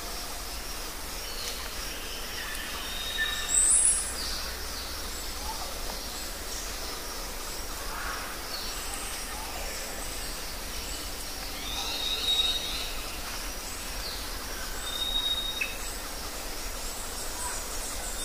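Outdoor ambience: a steady background hiss with scattered high bird chirps and thin whistles. The loudest is a sharp rising chirp about four seconds in.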